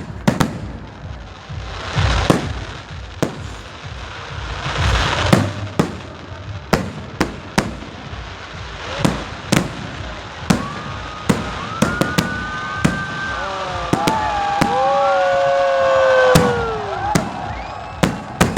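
Fireworks and firecrackers going off: a string of sharp bangs at irregular intervals, with hissing bursts about two and five seconds in and several falling whistles in the second half.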